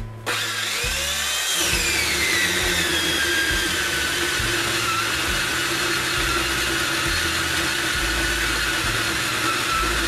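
Circular saw driving a Prazi beam cutter chain bar, running and cutting lengthwise through a log. It starts abruptly with a high whine that falls in pitch over the first few seconds and then holds steady.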